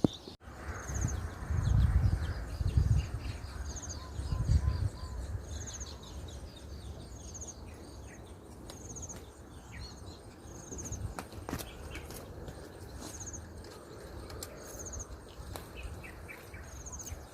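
Outdoor pond-side ambience: a bird repeats a short, high buzzy call about every second and a half. Low rumbling bumps on the microphone in the first five seconds are the loudest sounds.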